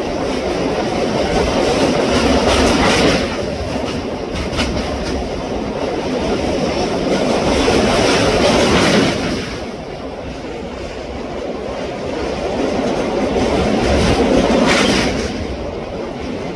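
Train running on the rails, its running noise swelling and easing three times about six seconds apart.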